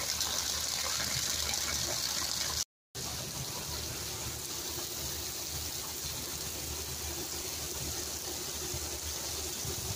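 Heavy rain falling steadily on wet ground and puddles, an even hiss. The sound drops out for a split second about three seconds in, then the rain carries on slightly softer.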